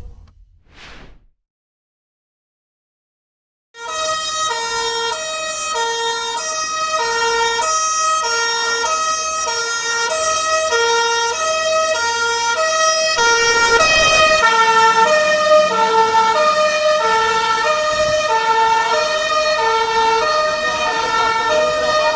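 Fire truck siren sounding two alternating tones, high and low, switching about once a second and growing slowly louder as the truck approaches. It cuts in suddenly a few seconds in, after a short whoosh and a stretch of silence.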